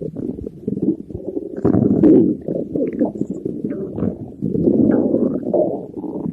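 Stomach growling: irregular low gurgling rumbles that swell and fade, loudest about two seconds in and again about five seconds in.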